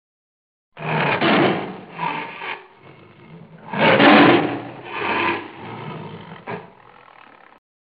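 A galgo (Spanish greyhound) vocalizing with its mouth wide open: a string of about six rough calls of uneven loudness, the loudest about four seconds in, the sound cutting in and out abruptly.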